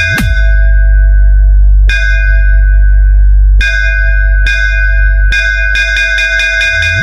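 Loud DJ sound-check competition music: a bright, bell-like synth hit repeated singly and in quick rolls over a continuous heavy bass, with a quick bass pitch sweep just after the start and again near the end.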